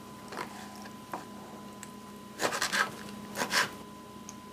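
Quiet kitchen handling noises: a few short scrapes and rustles, faint at first and louder around the middle and again near the end, over a faint steady hum.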